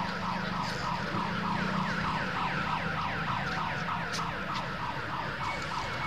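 Electronic siren wailing in quick, evenly repeated falling sweeps, about three or four a second, over a low steady hum.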